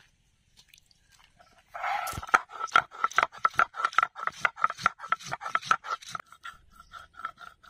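A stone pestle (nora) grinding dried red chillies on a stone grinding slab (shil): stone scraping on stone in quick, rhythmic strokes that start about two seconds in.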